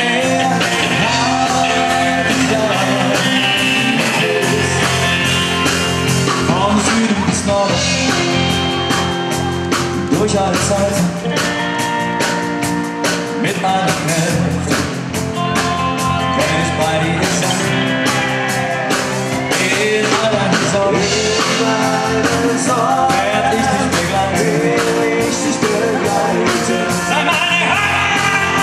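Live band playing a song, with a male lead singer singing into a microphone over guitar and a steady beat.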